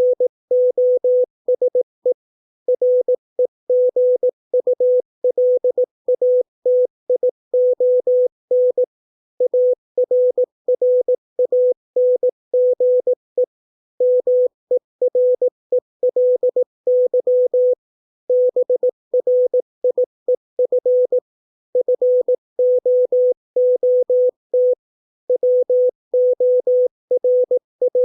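Morse code practice tone sending English words at 18 words per minute: a single steady-pitched tone keyed on and off in short dots and longer dashes, with brief pauses between words.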